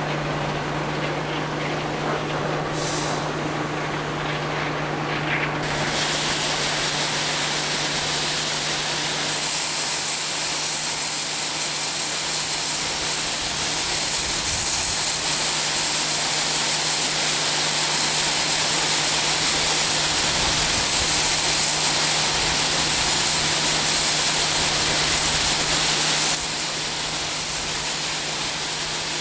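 Heavy farm machinery running steadily: a constant low engine hum under a loud mechanical hiss. The sound changes abruptly about six seconds in, when the hiss grows much brighter, and again near the end, when it drops back.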